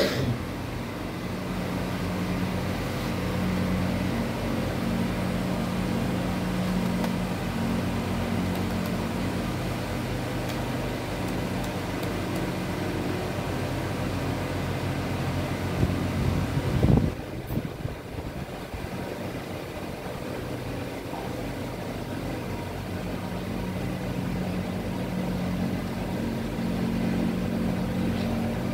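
A steady low mechanical hum made of several held low tones, with a brief louder noise about 17 seconds in.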